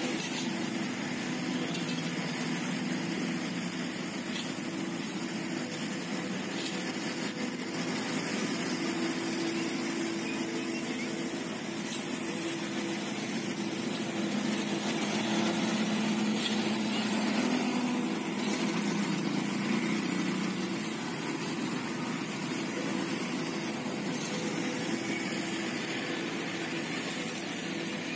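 Engine of heavy road-paving machinery running steadily, its pitch rising a little for a few seconds past the middle.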